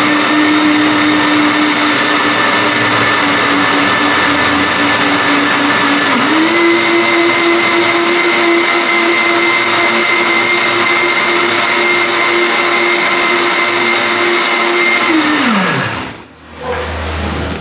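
Countertop blender motor running steadily, blending tomatoes into juice. About six seconds in, its pitch steps up to a higher speed. Near the end the motor is switched off and winds down to a stop.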